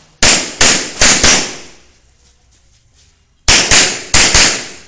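Gunshots in two quick strings of four, each string's shots about a third of a second apart, with a pause of about two seconds between strings. Each shot is sharp and trails off in a short echo.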